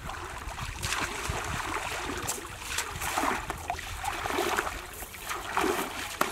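Water sloshing and splashing in irregular bursts as a man wades and hauls a fishing net through muddy pond water, over a low wind rumble on the microphone.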